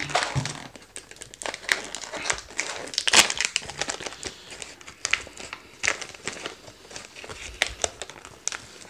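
Foil ration pouch of crispbread being crinkled and torn open by hand: irregular crackling and rustling, loudest about three seconds in.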